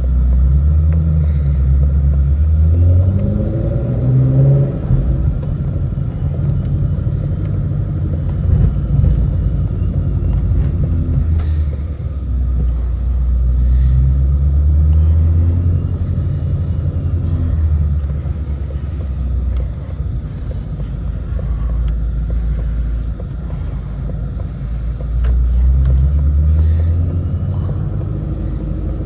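Ford Shelby GT350's 5.2-litre flat-plane-crank V8 heard from inside the cabin while driving, its note rising under acceleration three times (near the start, in the middle and near the end) and settling back to a low, steady drone between.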